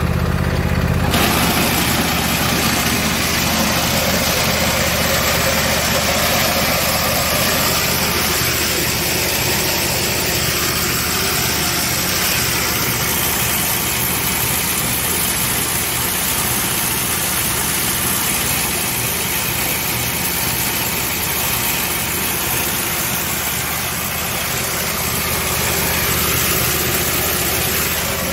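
Husqvarna YTH22V46 lawn tractor's V-twin engine running, joined about a second in, as the parking brake is released, by a loud steady racket from the drive underneath. The drive belt had come off its pulley and been put back, and the tractor is still making this racket.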